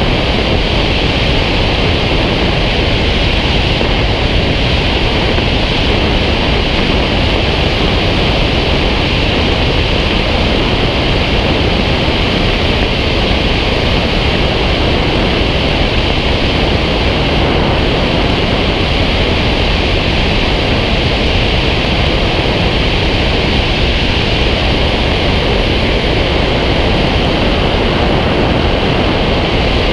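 Steady rush of airflow over a wing-mounted camera on a glider in flight, a loud, even noise with a deep rumble and a hiss.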